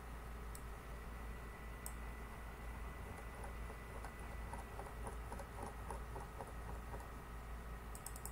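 Faint clicking of a computer mouse scrolling through a document: a couple of single clicks, then a run of quick scroll-wheel ticks in the middle and a tight cluster of clicks near the end, over a low steady hum.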